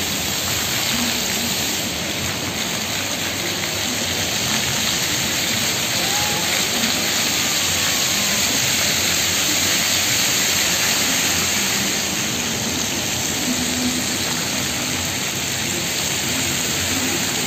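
Fountain of Wealth's rows of water jets spraying up and splashing back onto the wet plaza paving, a steady rushing hiss of falling water.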